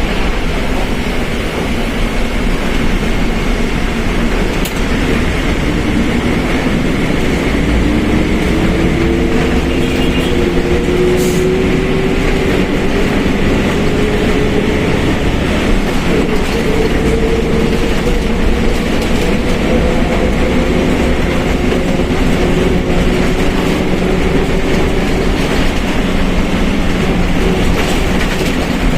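Mercedes-Benz OF1721 BlueTec 5 bus under way, its differential whining loudly over a steady road and body rumble. From about six seconds in the whine rises slowly in pitch, then holds and fades near the end.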